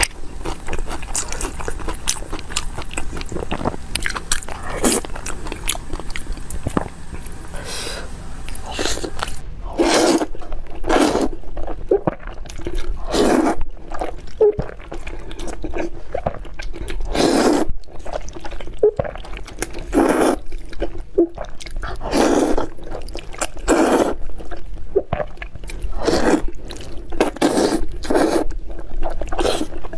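Close-miked eating sounds: chewing and biting soft braised pork belly at first, then, about a third of the way in, loud slurps and chewing of noodles, one burst every second or two.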